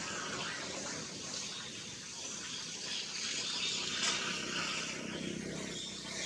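Steady rushing background noise with a short sharp click about four seconds in.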